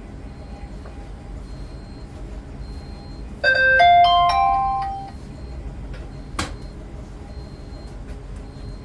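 A short electronic chime melody, a quick run of stepped notes lasting about a second and a half, sounds about three and a half seconds in over a steady low hum. A single sharp click follows about three seconds later.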